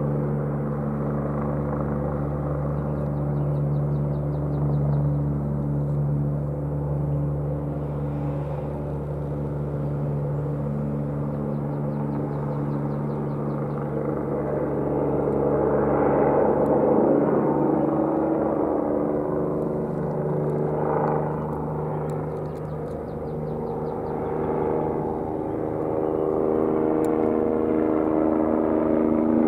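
Airbus EC-145 twin-turbine helicopter taking off and climbing, its turbines and rotor a steady layered drone that grows louder in the second half as it comes overhead.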